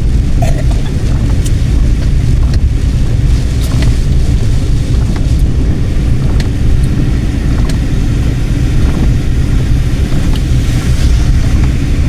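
A car driving along a road: a steady, loud low rumble of engine and tyres, with scattered sharp ticks over it.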